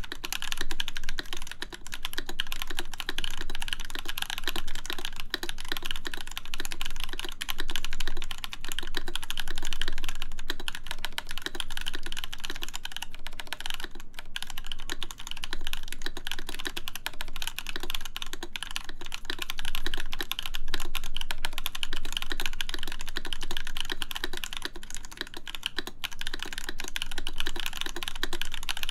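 Continuous fast typing on a full-size mechanical keyboard fitted with lubed JWK Camping Life switches on an aluminum plate, with MW Retro Lights keycaps: a dense run of key clicks and clacks with a few brief pauses.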